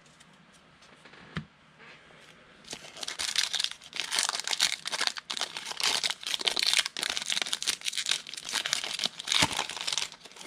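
Foil wrapper of a pack of football trading cards being torn open and crinkled. It starts about three seconds in and goes on for several seconds.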